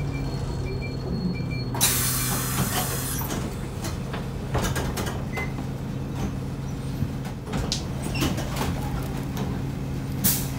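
Isuzu Erga city bus's four-cylinder diesel idling steadily while stopped, with a loud compressed-air hiss lasting about a second starting about two seconds in, scattered clicks and knocks, and a second short air hiss near the end.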